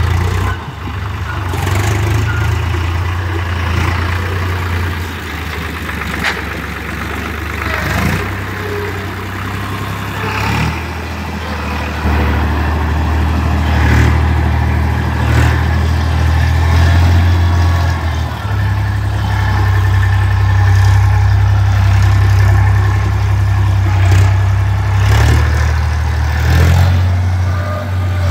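Eicher 5660 tractor's diesel engine running as it pulls a loaded trolley over rough ground, its level rising and easing with the load. Scattered knocks are heard over the engine.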